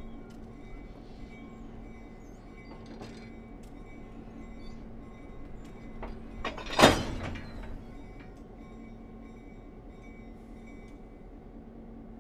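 A diesel locomotive's engine running at idle while it creeps back, and just past halfway one loud clank as its knuckle coupler slams into the coupler of a steam locomotive's tender and the two lock together, with a short ringing after.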